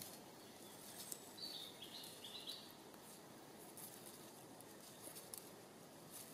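Near silence: faint forest ambience, with a bird giving a few short high notes about one and a half seconds in, and faint crackling of dry grass as a dog sniffs through it.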